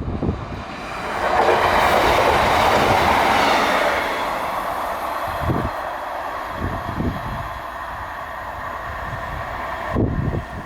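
A train running through the station on the rails: a loud rush of wheel and running noise builds about a second in, then eases after about four seconds into a steadier rumble with a few low thumps.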